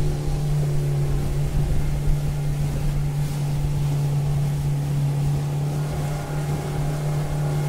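Speedboat engine running steadily at a constant pitch, with the rush of water and wind.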